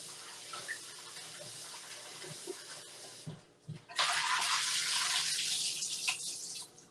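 Kitchen tap running cold water over raw chicken wings in the sink. The flow is faint at first, then, after a short pause with a couple of knocks, a much louder gush starts about four seconds in and stops just before the end.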